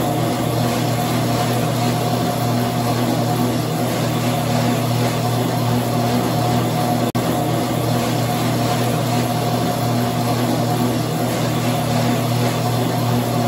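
Motorized treadmill running steadily: a constant mechanical hum and whir. It drops out for an instant about seven seconds in, where the recording loops.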